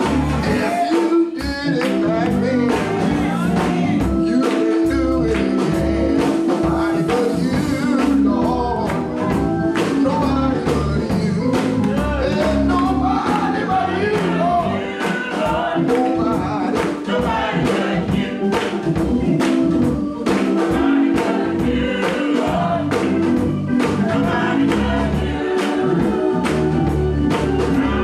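Gospel church choir singing over band accompaniment, with a strong bass and a steady beat.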